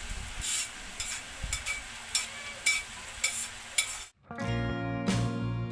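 Chicken and pork pieces frying in a steel wok, a steady sizzle with sharp crackles and spatters every half second or so as the meat browns. A little over four seconds in it cuts off and background music begins.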